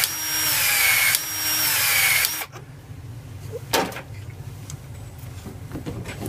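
Battery-powered Wirsbo PEX expansion tool running in two back-to-back cycles of about a second each, expanding the end of PEX pipe for a fitting. The motor's pitch drops at the end of each cycle, and it stops about two and a half seconds in. A single sharp click follows, then faint handling.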